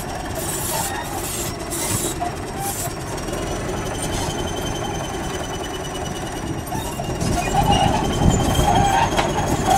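Crawler bulldozer's diesel engine running, with a thin, steady high squeal from its steel tracks setting in a few seconds in. The machine grows louder near the end.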